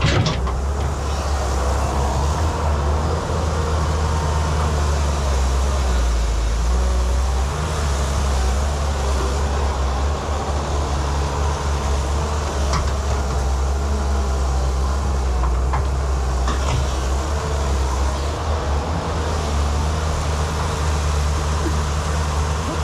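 Excavator engine running steadily under load, with a few sharp metallic clanks from the working machine.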